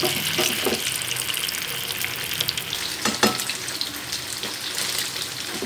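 Boiled taro root (arbi) pieces sizzling and crackling as they shallow-fry in hot oil in a pan, just after going in; one louder click about three seconds in.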